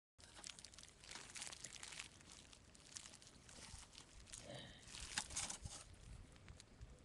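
Small wood fire crackling in a compact camp stove under a mess tin: faint, scattered snaps and pops over a soft hiss.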